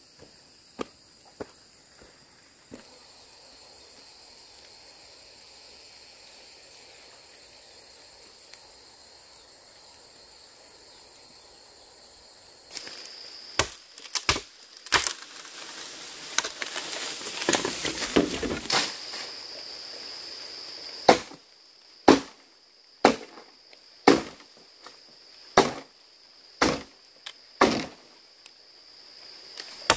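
Machete chopping into a bamboo stalk with sharp blows about once a second in the second half, after several seconds of rustling and crackling through dry leaves and bamboo. Insects drone steadily in the background.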